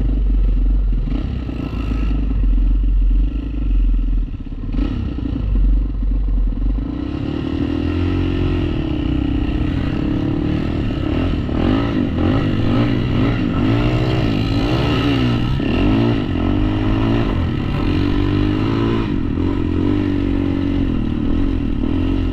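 ATV engine running, with a deep rumble at first; from about seven seconds in its revs rise and fall over and over as it is ridden.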